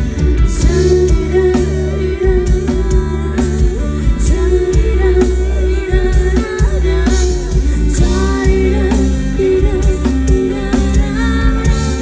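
Instrumental break in a pop ballad: a band with bass, drum kit and guitar playing under a wavering lead melody, with no lyrics sung.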